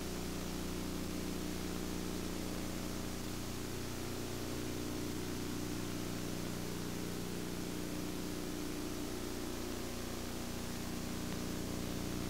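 Steady hum and hiss with several constant low tones and no changes or events.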